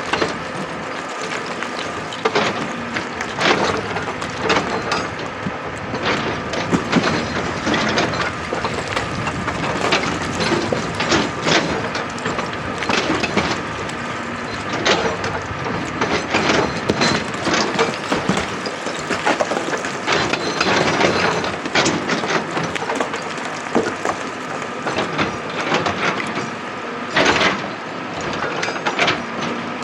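Excavator working rock: its engine runs steadily under irregular cracks, knocks and scraping of stone against the metal bucket.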